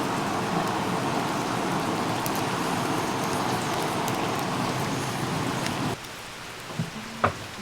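Steady rain falling for about six seconds. It cuts off suddenly to a quieter stretch with a knock and a sharp click near the end.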